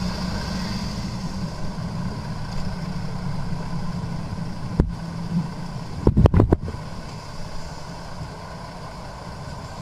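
Vehicle engine and road noise as recorded by a dashboard camera, a steady low hum. About five seconds in comes a single sharp knock, and about a second later a quick run of four loud thumps.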